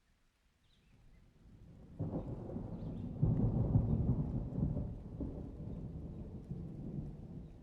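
A roll of thunder: a low rumble swells about a second in and cracks louder at about two seconds. It is loudest a little after three seconds, then rumbles on and slowly fades.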